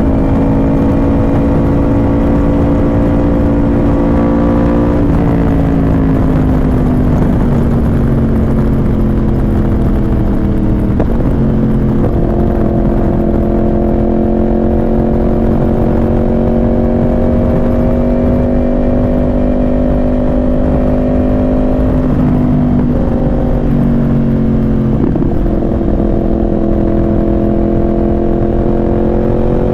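Yamaha R1's inline-four engine running at fairly steady revs under way, the pitch easing down and picking back up a few times (about five seconds in, around eleven seconds, and twice between about 22 and 25 seconds) as the throttle and gears change. A steady low rush of wind runs underneath.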